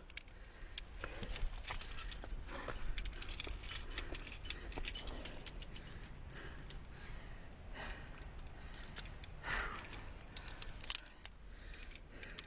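Climbing gear jingling and clinking: carabiners and cams on a harness rack knock together in scattered light clicks as the climber moves, with a run of sharper metal clinks near the end as a chain anchor and carabiner are handled.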